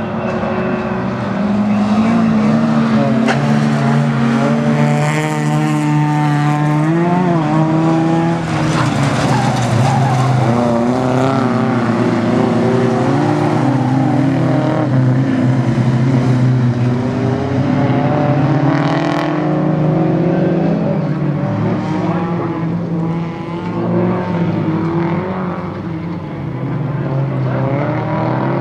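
Engines of several bilcross (folkrace) race cars running hard on a gravel track, overlapping one another. Their pitch rises and falls as they rev and back off, with a clear climb about five to seven seconds in.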